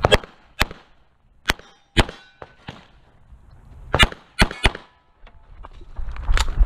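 Semi-automatic pistol firing at close range: a string of sharp shots, mostly in pairs about half a second apart, some with a brief metallic ring after them. Near the end, footsteps crunch on gravel as the shooter moves.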